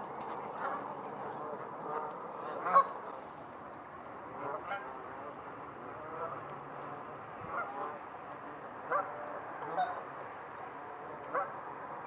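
Waterfowl calling: short calls at irregular intervals, the loudest nearly three seconds in, over a steady background hiss.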